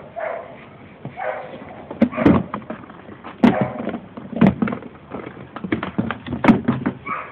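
Hard plastic storage bin knocking and bumping against the floor as a mini Schnauzer inside it pushes and scrambles. There are a few separate sharp knocks, then a rapid flurry of them near the end.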